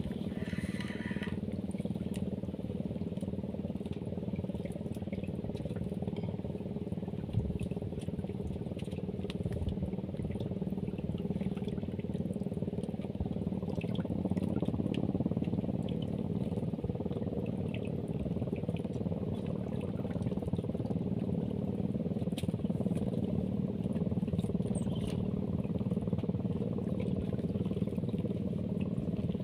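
Small boat engine running steadily at low revs, with faint water sounds around the hull.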